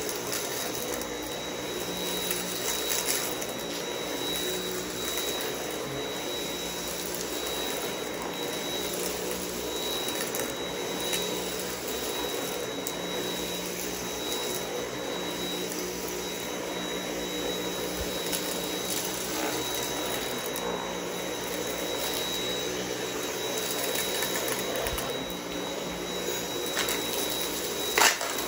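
Dyson V8 cordless stick vacuum running steadily with a high, even motor whine as its cleaner head is pushed over a rug, sucking up scattered crunchy debris. Occasional clicks from pieces being pulled up the wand, with a few sharper clicks near the end.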